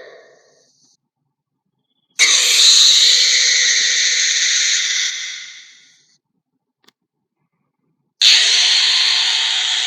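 Wendip creature sound effect: two long, harsh hissing calls, each starting abruptly and trailing off over a few seconds, with a tiny click between them.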